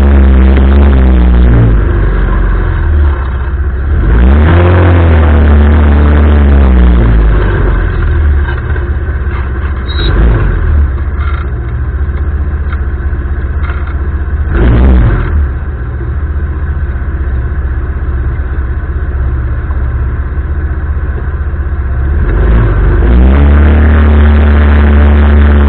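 Arora Herkul 200 ATV's single-cylinder four-stroke engine running under way, its pitch rising and falling several times as the throttle is worked, with a steadier stretch in the middle.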